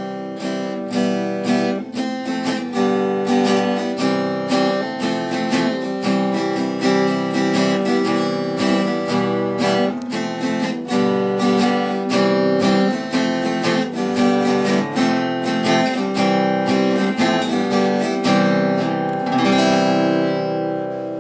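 Music: a strummed acoustic guitar playing a steady run of chords, ending on one last chord that rings out and fades.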